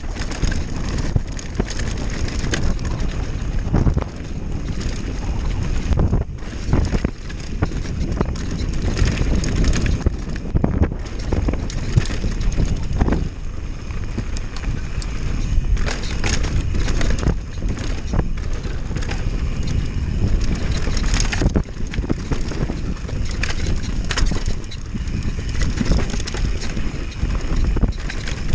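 Downhill mountain bike descending a dirt trail: steady wind buffeting on the camera microphone and tyre noise on loose dirt, with frequent sharp knocks and rattles from the bike over bumps.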